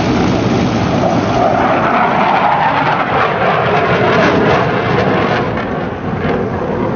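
An aircraft flying past, its engine noise swelling to a peak about four seconds in and then fading.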